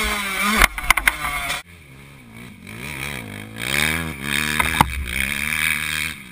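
Dirt bike engine revving hard, heard close up from the bike itself. After a cut about a second and a half in, a dirt bike is heard from beside the track, quieter, its engine pitch rising and falling through the gears as it rides past.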